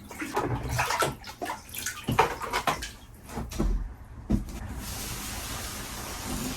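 Water being bailed out of a flooded sailboat cabin: irregular sloshing and splashing for the first few seconds, then a steady rush of pouring water from about five seconds in.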